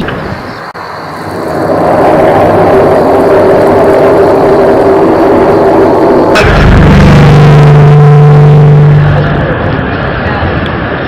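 Loud, steady drone with several held low tones over a rumbling noise, the unexplained sound heard as coming from the sky; its source is not identified. About six seconds in it switches abruptly to a deeper, steady hum.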